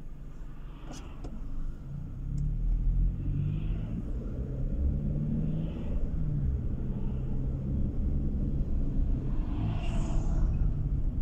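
Car engine and tyre noise heard from inside the cabin while driving, a low rumble that grows louder about two seconds in. About ten seconds in, an oncoming truck passes close by with a brief rush of air.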